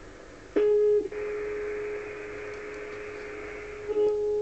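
Steady test tone from the Uniden 2020 transceiver's receiver: the signal generator's signal tuned in on the 40 metre band during alignment. It comes in about half a second in, eases back with receiver hiss under it, and comes up louder near the end.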